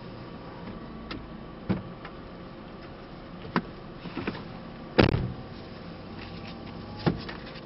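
A car door is opened with latch clicks, someone climbs into the back seat, and the door shuts with a heavy thud about five seconds in. Lighter clicks and knocks come before and after it.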